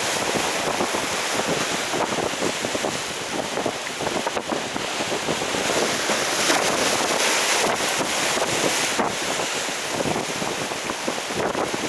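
Steady wind on the microphone over the wash of waves and moving seawater.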